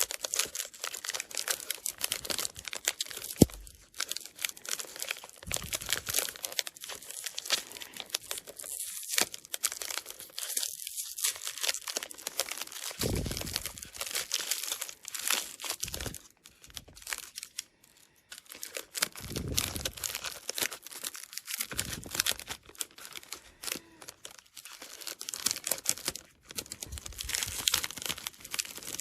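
Plastic mystery-pack wrapping being torn open and crinkled by hand, with irregular crackling, tearing and small handling knocks.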